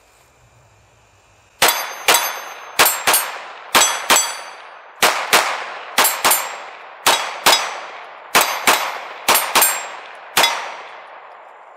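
Glock 45 9mm pistol in a CAA MCK conversion kit firing double taps: eight quick pairs of shots, the two in each pair about a third of a second apart, then one last single shot as the magazine runs empty. Steel targets ring when hit.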